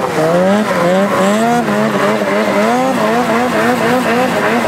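Snowmobile engine revving up and down over and over, its pitch rising and falling about twice a second as the throttle is worked in deep snow.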